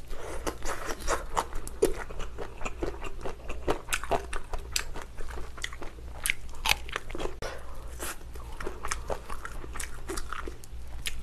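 Close-miked biting and chewing of a gimbap roll, with many short, irregular mouth clicks and smacks.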